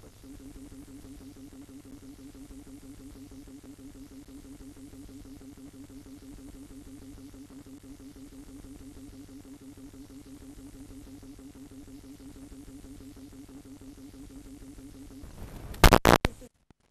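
A steady low tone with a fast, even wavering holds for about fifteen seconds. Near the end a short, loud burst of noise from the CED videodisc player's playback breaks in as the picture turns to static, and the sound then cuts off.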